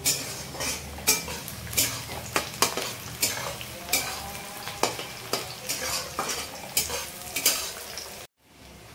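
Sliced onions sizzling in hot oil in an aluminium kadai while a flat metal dosa-turner spatula stirs and scrapes them against the pan, about one or two scrapes a second. The sound cuts off suddenly near the end.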